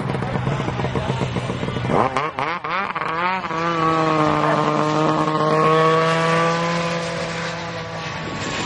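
Snowmobile engines idling, then revving hard about two seconds in as the sleds launch in a drag race, the pitch climbing and warbling. They settle into a steady high-revving note that slowly drops in pitch and fades as the sleds pull away.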